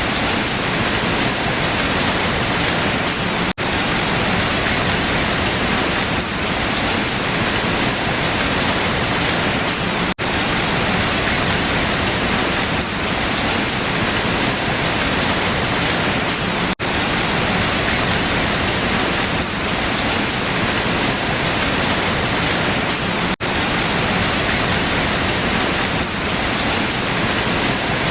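Steady rain falling on leaves, an even hiss of drops with no let-up. Four very brief gaps about six and a half seconds apart break the sound.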